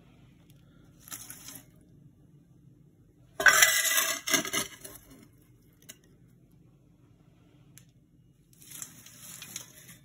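Metal ash scoop and poker scraping ash out of a brick stove's ash chamber during cleaning: three bouts of gritty scraping, the loudest about three and a half seconds in, another near the end.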